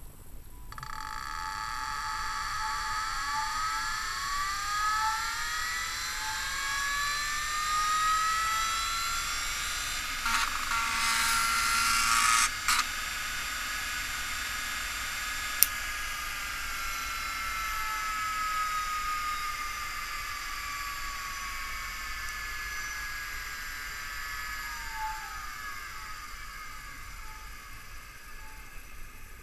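MiniScribe 3650 5.25-inch MFM hard drive running with its cover off. The spindle motor spins the platter up with a rising whine of several tones. About ten seconds in, the head stepper motor buzzes loudly for a couple of seconds, then there is a single sharp click. Near the end the whine falls away as the platter spins down.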